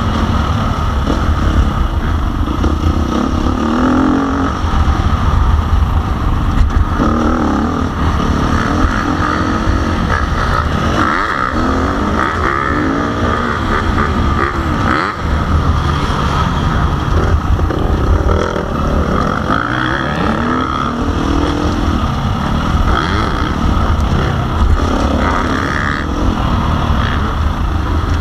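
Motocross bike engine revving up and down over and over, the pitch rising and falling every few seconds.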